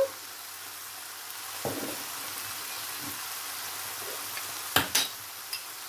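Chicken breast and onions frying in a pan, a steady sizzle. A brief knock comes a little under two seconds in, and two sharp clicks about five seconds in.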